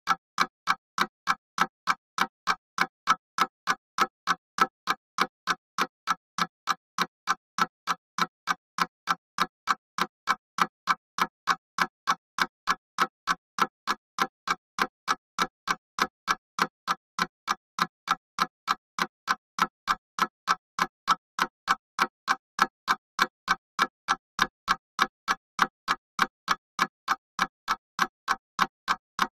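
Mechanical clock ticking steadily, a few sharp, even ticks a second.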